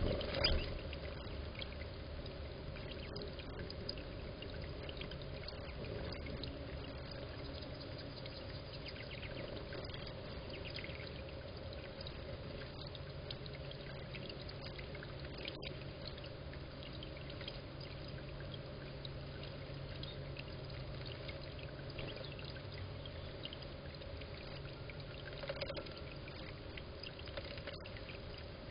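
Small bubbler fountains in a tabletop bird-bath water garden, water trickling and splashing steadily, with a couple of brief louder bursts in the first second.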